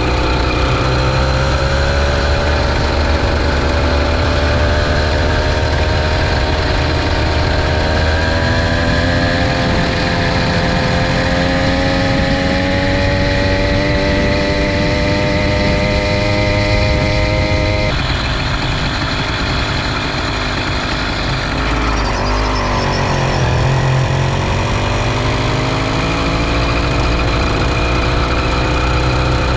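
Small engine of a motorized bicycle running under load, its pitch climbing slowly for the first half, then changing abruptly, dipping and picking up again about three quarters of the way through.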